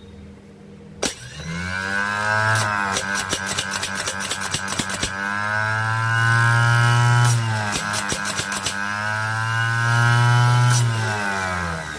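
Rebuilt Delco Remy 42MT 24-volt starter motor running free on the bench. A sharp click about a second in, then a rising whine as it spins up. It runs at speed with a rapid run of sharp clicks in the middle and a hum that swells twice, then winds down near the end. It spins well, a sign that the repair with the new armature and bushes is sound.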